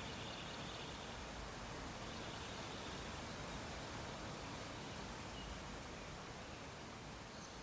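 Faint, steady background hiss with a low rumble underneath: quiet ambient noise.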